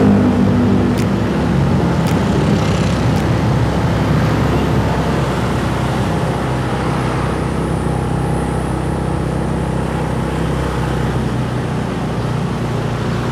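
Motorcycle engine running at low road speed in slow traffic, with a steady low rumble. Its pitch drops at the start as it slows. A few faint ticks come in the first three seconds.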